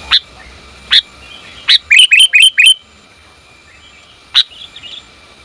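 Female sooty-headed bulbul (kutilang) calling: sharp, upswept single notes about a second apart, a quick run of about six notes about two seconds in, then another single note near the end. It is the female's call to males, used as a lure.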